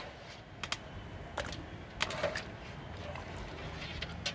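Raw trevally pieces being put by hand into masala paste in a large metal pot: a handful of short, scattered knocks and soft impacts against the pot.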